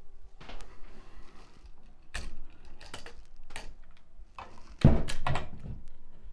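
Small clicks and knocks from handling a wall light switch and its wires while a wire is hooked under a screw terminal, with a louder thump about five seconds in.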